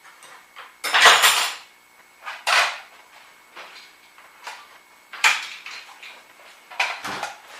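Objects being handled and set down on a workbench: a few separate clattering knocks and scrapes, the loudest and longest about a second in.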